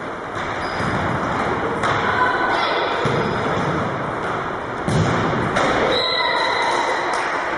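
A futsal ball kicked and thudding on a wooden gym floor, with sharp thuds about two and five seconds in, over the echoing din of a large sports hall. Shouts rise near the end.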